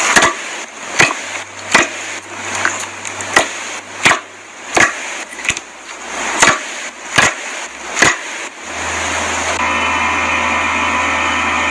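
Clear slime being squeezed and pressed, giving sharp pops and clicks about every 0.7 s with crackling between them. About eight and a half seconds in, the pops stop and a steady hiss with a low hum takes over.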